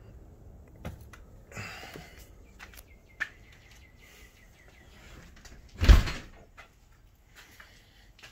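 A door shutting with a loud thump about six seconds in, after a few clicks and a rustle; small birds chirping in the background.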